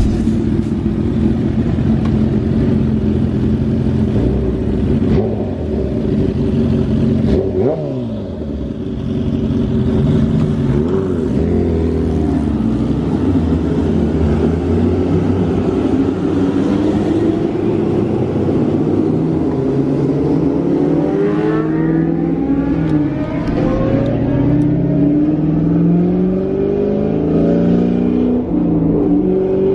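High-performance car engines idling and revving in traffic, with one quick rev about eight seconds in. From about two-thirds of the way through, an engine accelerates hard, its pitch climbing through several gear changes.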